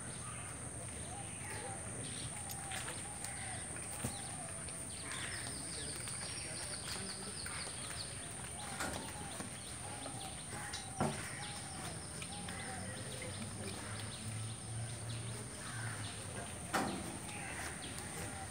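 Quiet outdoor ambience at a horse stable: scattered faint bird calls over a low steady background, broken by a few short sharp knocks.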